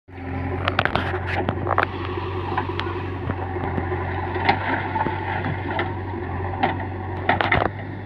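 JCB backhoe loader's diesel engine running steadily while the backhoe bucket digs into rocky soil. Stones clatter and knock at irregular moments, in a flurry about a second in and again near the end.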